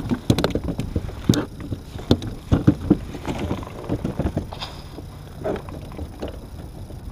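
Irregular knocks and clatters of gear being handled and a body shifting aboard a plastic fishing kayak, bunched in the first three seconds and thinning out after.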